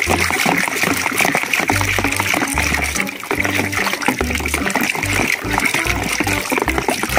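Wet squelching and sloshing of a hand working a plastic toy gun out of thick, foamy coloured mud, with many small splashy clicks, over background music with a repeating bass line.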